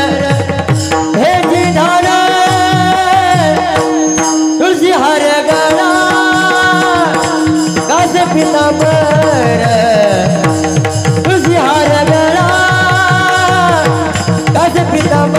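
Marathi devotional bhajan music: a winding melody over a steady held drone, with tabla-style hand-drum strokes keeping a regular beat.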